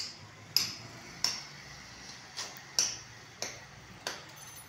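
Hammer striking in a steady rhythm, a sharp knock about every two-thirds of a second, about seven in all, as old tiling is broken out.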